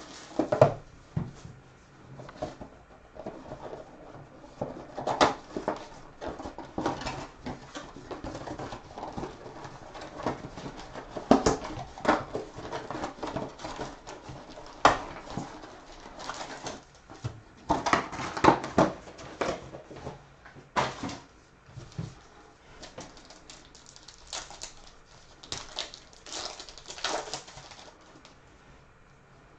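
Foil card-pack wrappers and cards being handled: irregular crinkling, tearing and rustling, with the loudest crackles about five, eleven, fifteen and eighteen seconds in.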